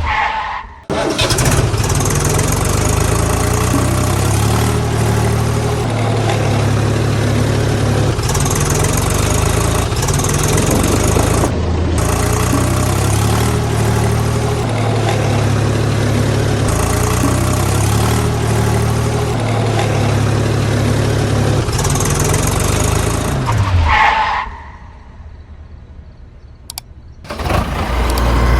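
Vehicle engine running steadily, its low note stepping up and down several times. It starts abruptly about a second in, and near the end it gives a short rising rev, then drops away to a faint sound and stops briefly before starting again.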